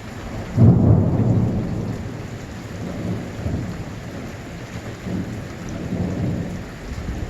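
Thunder: a low rumble that breaks in suddenly about half a second in and rolls on with several smaller swells, over steady rain.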